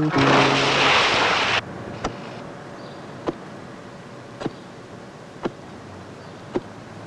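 Loose earth shovelled and pushed into a pit, a loud rush that cuts off suddenly after about a second and a half. Then a wooden pole thudding into a hole in the ground five times, about once a second.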